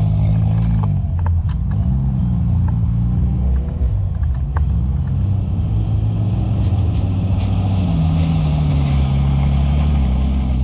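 Off-road vehicle engine revving up and down again and again while pushing through deep mud, holding steadier near the end, with a few sharp knocks over it.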